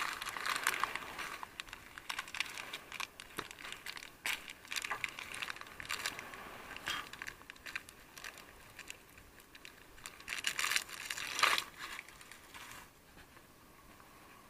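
Foil snack packets and a paper-and-banana-leaf food wrapper crinkling and rustling in the hands, in irregular crackly bursts. The loudest crinkles come about ten to twelve seconds in, and the sound dies down near the end.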